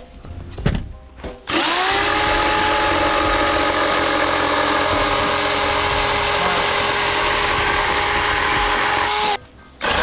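Power tool motor spinning up and running steadily for about eight seconds, then stopping briefly near the end and starting again. A few knocks come before it starts.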